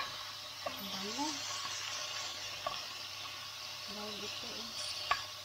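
Lamb chops sizzling in hot oil in a frying pan, a steady high hiss. Metal tongs click against the pan about four times as the chops are moved.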